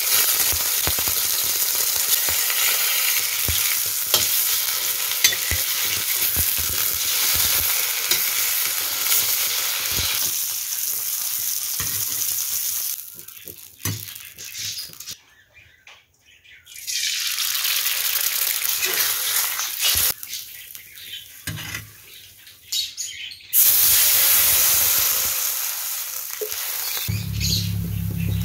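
Tofu frying in hot oil in a steel wok: a steady sizzle with occasional sharp clicks. It fades almost away about halfway through and comes back loudly several seconds later.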